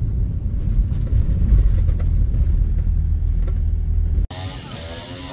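Car cabin rumble of the engine and tyres while driving slowly, heard from inside the car. About four seconds in it cuts off abruptly to a quieter scene with a voice.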